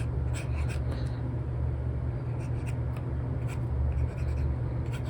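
Stylus nib of an Apple Pencil scratching and tapping on an iPad's paper-like screen protector in short, irregular sketching strokes, over a steady low rumble.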